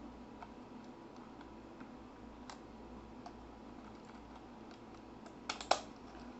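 Small plastic clicks of a Canon DSLR being handled as its battery and SD card are pushed in and the compartment doors closed: faint scattered clicks, then two or three louder snaps about five and a half seconds in.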